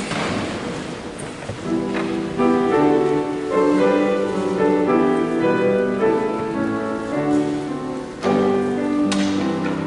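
Instrumental keyboard music, with held chords changing every second or so, begins about two seconds in.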